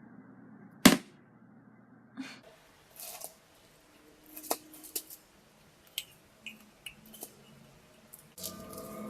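Slime being handled by hand, giving scattered sticky clicks and small pops, the sharpest a single click about a second in, with a brief denser squelching stretch near the end.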